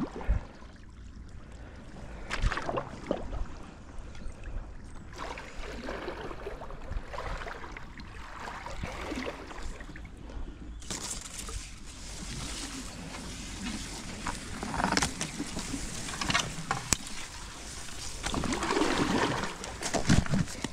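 Kayak paddle strokes in creek water from an Advanced Elements AirFusion EVO inflatable kayak: irregular dips, splashes and drips. A background hiss grows louder about halfway through.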